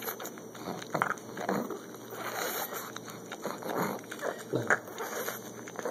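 Pug puppy gnawing kernels off a cooked corn cob, with irregular crunching bites.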